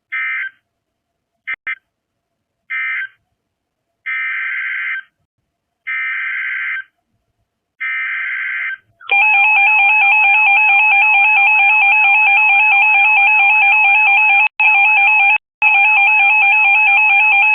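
NOAA Weather Radio emergency alert signalling: a run of short warbling digital data bursts, the last three about a second long, then a loud, steady alert tone with a fast warble that cuts out briefly twice near the end. The data bursts and alert tone herald the tornado warning that follows.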